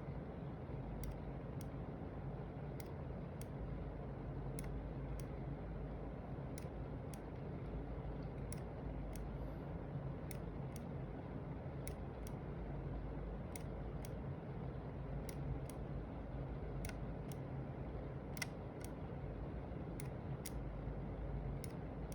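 Logitech G703 gaming mouse buttons clicking: single sharp clicks at an uneven pace of roughly one or two a second, some in quick pairs, over a steady low background hum.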